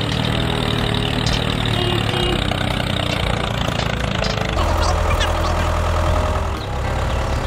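Tractor engine sound running steadily, played for a toy tractor. About four and a half seconds in it changes to a heavier, louder hum.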